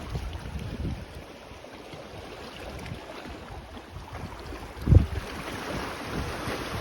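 Sea waves washing on a sandy beach, with wind buffeting the microphone in low, uneven gusts; one strong gust about five seconds in is the loudest moment.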